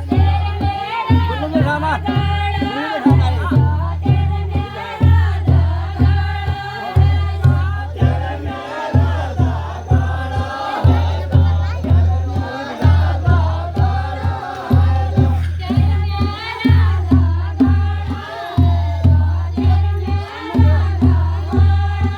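Pahari chanchari folk song: a group of voices singing together over a deep drum beat that falls about once a second.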